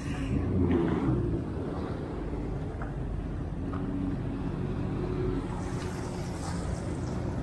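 Jet ski engine running steadily under way, with wind and water rushing past.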